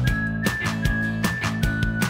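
Upbeat background music with a steady beat, a bass line and a high held lead melody.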